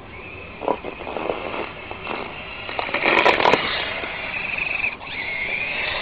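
Remote-control toy Jeep's motor whining as it drives, with scraping and crunching as it pushes snow, loudest around three seconds in. The whine cuts out briefly near five seconds in, then comes back rising in pitch.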